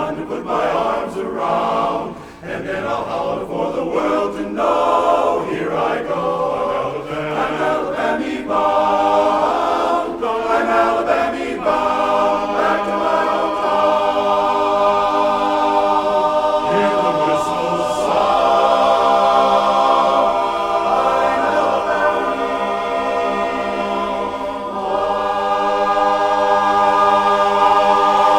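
Barbershop chorus singing a cappella in close harmony. Quick rhythmic sung phrases give way, about twelve seconds in, to long held chords that swell louder near the end: the song's closing tag.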